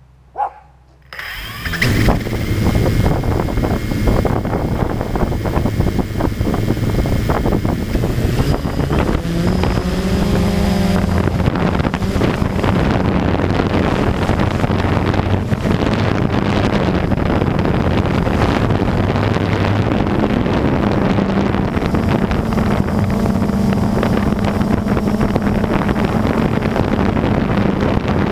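Blade camera drone's electric motors and propellers spin up about a second in and then run with a steady hum as it lifts off and climbs, the pitch shifting a few times. Wind buffets the drone's onboard microphone. A short blip comes just before the motors start.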